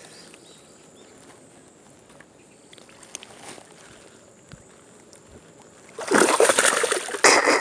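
Faint water sounds, then loud splashing about six seconds in, lasting over a second: a hooked fish thrashing at the surface beside the float tube.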